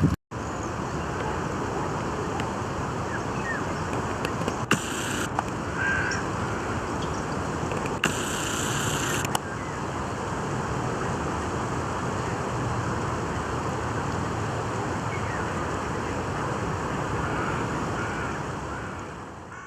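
Steady outdoor nature ambience: an even noise with a few faint bird calls, and two brief hissing swells about five and eight seconds in.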